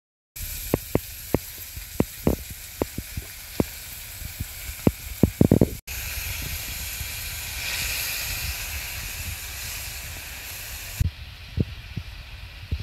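Spinach and lion's mane mushroom sautéing in a hot frying pan: oil sizzling with many sharp crackling pops in the first half, then a steadier sizzle after a cut about six seconds in. A few knocks near the end.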